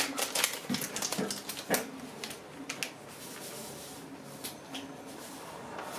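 A foil sachet crinkling and being snipped open with a run of sharp crackles. Then fine whipped-cream powder pours into milk in a glass bowl with a soft, even hiss, followed by a few more crinkles of the foil.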